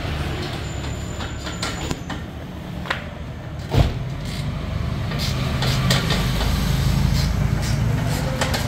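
Toyota Avanza engine idling with a steady low exhaust rumble through a newly fitted Spoon Sport muffler, a little louder in the second half. Over it come metallic clicks and knocks from a hand tool on the muffler clamp, with one sharp knock just before four seconds in.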